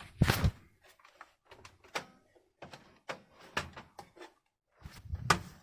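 Knocks and clicks of a desktop PC case being forced apart by hand: a loud clunk just after the start, scattered small clicks and taps, then another clunk near the end.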